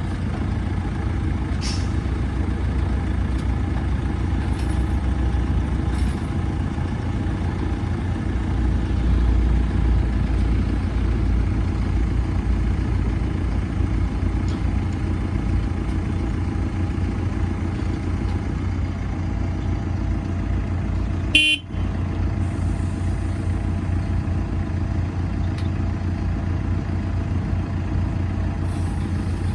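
The 2013 JCB 3CX backhoe loader's diesel engine running steadily. About two-thirds of the way through there is one short, sharp sound and a momentary dropout.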